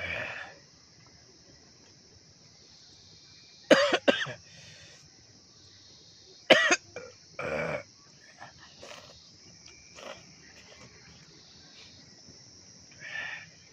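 A few short, loud mouth sounds from a man eating noodles with chopsticks, over steady insect chirping.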